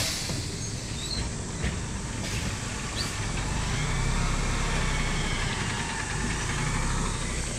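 City bus's rear-mounted engine running at idle, a steady low rumble heard close beside the engine bay, swelling slightly about halfway through.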